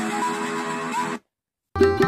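Music with plucked-string notes playing through a pair of rebuilt speakers during a sound test; it cuts off dead just over a second in, and after half a second of silence a different piece with plucked notes and low drum beats starts.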